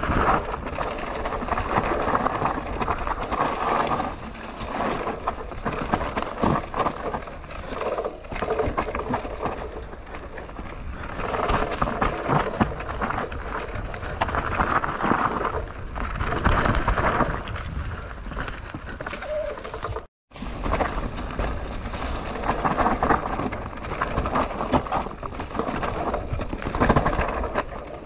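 Mountain bike descending a leaf-covered dirt trail: knobby tyres rolling and crunching over dry leaves and dirt, with the bike rattling over bumps, in uneven surges of noise. The sound cuts out completely for a moment about twenty seconds in.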